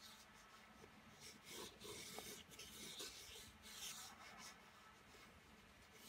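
A pencil sketching lightly on textured watercolour paper: faint scratching that comes and goes in short, irregular strokes.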